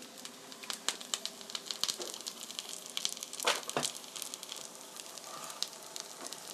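Oil sizzling and crackling in a frying pan of batter-coated green chili pepper pancakes, the burner just switched off. There is one sharper knock about three and a half seconds in.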